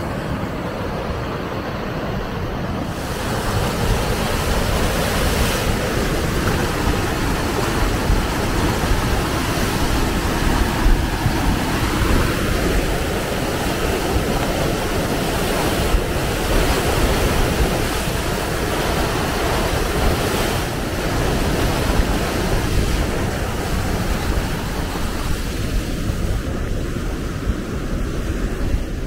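The flood-swollen Schuylkill River rushing and churning, with a steady rush of water and wind buffeting the microphone. It gets a little louder about three seconds in.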